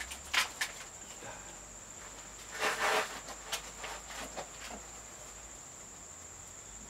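A cricket trilling steadily at a high pitch, with a couple of short knocks near the start and a brief rustling scrape about a third of the way in.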